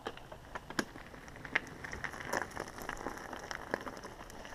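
Mountain bike rolling slowly over a loose, stony dirt trail: tyres crunching on gravel, with scattered irregular clicks and ticks.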